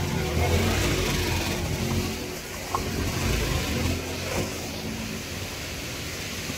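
A motor vehicle engine running, louder in the first couple of seconds and then easing off to a lower, steady level.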